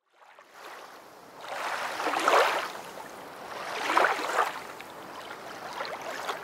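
Sea waves washing in, heard as two swelling surges of hissing surf about a second and a half apart, then a lower wash.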